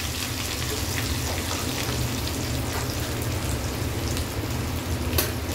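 Fennel seeds and curry leaves frying in hot groundnut oil in a kadai: a steady sizzle with scattered small crackles, and one sharper crackle near the end.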